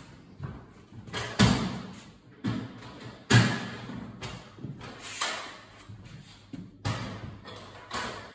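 A series of irregular knocks and thuds, about one a second, the loudest two about one and a half and three and a third seconds in, each trailing off briefly.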